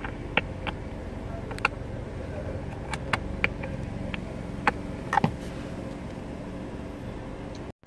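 Irregular sharp clicks and scrapes of a screwdriver working at a screw in the plastic steering-column trim, over a steady low hum.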